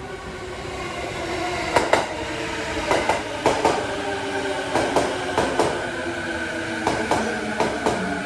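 JR E233-8000 series electric train with a Mitsubishi IGBT-VVVF inverter pulling into a station: the inverter and traction motor whine in several tones that slowly fall in pitch as it brakes. From about two seconds in, the wheels clack over a rail joint, mostly in pairs of beats as each bogie passes, and the train grows louder as it draws near.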